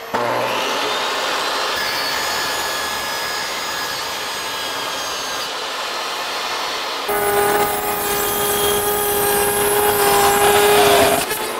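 Jobsite table saw running and cutting a pine shiplap board lengthwise to width. About seven seconds in the sound changes to a louder, steadier hum with a clear tone as a second pass is cut along the fence, and it stops shortly before the end.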